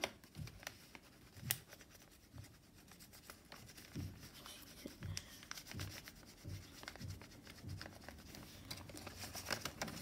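Blue pen scribbling on folded paper: faint, repeated scratchy strokes as the paper bird is coloured in.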